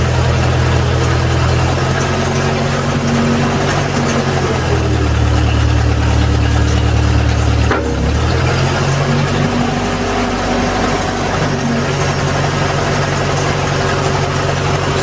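Old Massey Ferguson backhoe's engine running steadily while the backhoe controls are worked. Its low note grows stronger for about three seconds in the middle, and there is a sharp click about eight seconds in.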